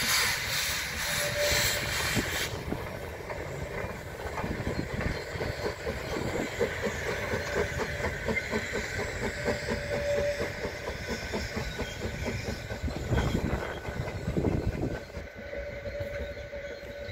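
Narrow-gauge steam locomotive pulling a train away: a loud hiss of steam cuts off suddenly about two and a half seconds in, then a rapid rhythmic beat of the moving train follows and slowly fades as it leaves.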